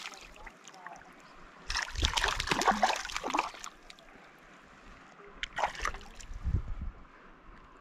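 A rainbow trout splashing in shallow water beside the angler's hand as it is released. There is a long burst of splashing about two seconds in and a shorter splash near six seconds.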